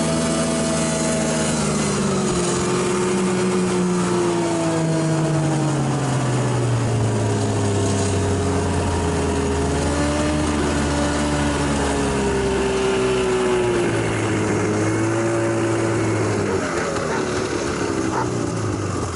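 Snowmobile engine running while riding over snow. The engine note falls gradually over the first several seconds, then holds steady, and fades away near the end.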